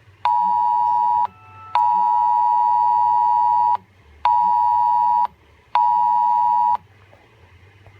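A phone's Wireless Emergency Alert attention tone for an AMBER Alert: a loud, harsh two-pitch tone sounding in a fixed cadence, a one-second tone, then a two-second tone, then two more one-second tones, each separated by half-second gaps. It stops about seven seconds in.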